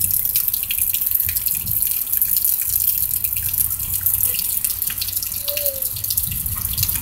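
Steady rain falling, a dense hiss full of fine patters and drips, with a low rumble underneath.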